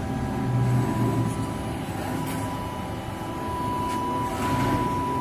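Steady low machinery hum with no punching strokes. A thin, steady high whine comes in about two seconds in, with a few faint clicks.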